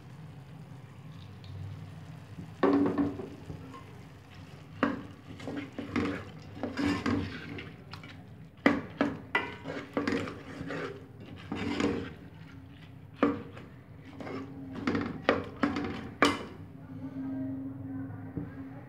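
Metal ladle stirring in an aluminium pot, scraping and knocking irregularly against the pot as split yellow lentils are mixed into an onion-tomato masala.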